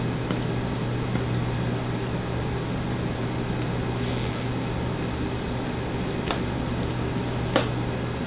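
Steady low hum in the room, with a soft rustle about four seconds in and two short clicks near the end, the second louder, as a small white cardboard box is handled and its lid worked open.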